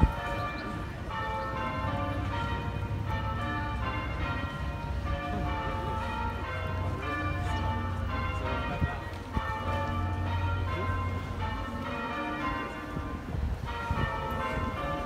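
Church bells being rung in changes, strokes at several pitches falling in repeating rounds, with a low steady hum beneath for much of the time.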